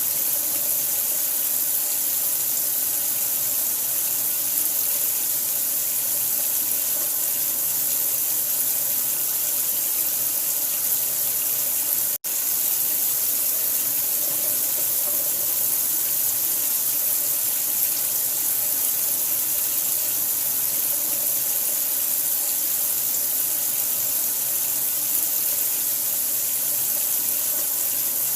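Running water, a steady even rush with a hiss strongest in the high end, played as sleep sound for a newborn. It cuts out for an instant about twelve seconds in.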